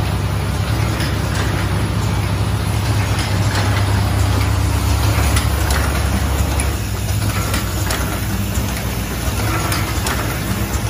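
Automatic hair-clip assembly machine running: its vibratory bowl feeders give a steady low hum, over which plastic parts rattle and the assembly mechanism clicks rapidly. The hum drops somewhat about two-thirds of the way in.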